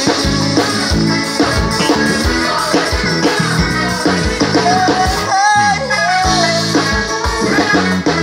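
Live forró band of electric bass, drum kit and electric guitar playing an instrumental break during a soundcheck, with a steady drum beat under it. About five seconds in, a lead melody line slides and bends.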